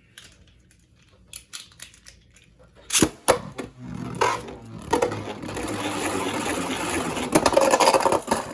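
Beyblade Burst tops (Tempest Wyvern and Blaze Ragnarok) readied with a few light clicks, then two sharp snaps about three seconds in. From about four seconds they spin and rattle in a plastic stadium, with harder clashing hits near the end.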